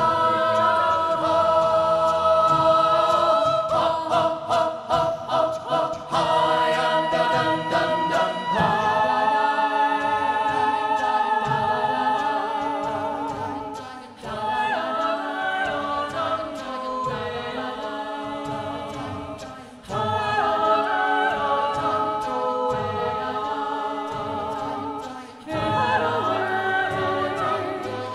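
A cappella mixed-voice ensemble singing in divided SATB parts through handheld microphones, a female soloist in front of the group's chords. There is a run of short, clipped rhythmic notes between about four and eight seconds in, and the phrases break off briefly three times.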